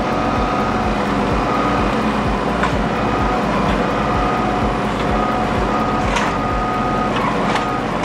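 Kubota compact diesel tractor's engine running steadily with a steady high whine, while its front-loader grapple lifts a log; a few sharp knocks sound from about three seconds in.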